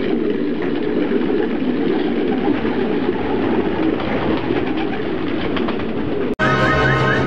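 Many racing pigeons cooing together in a crowded loft, a steady dense chorus of low coos. About six seconds in it cuts off abruptly and music begins.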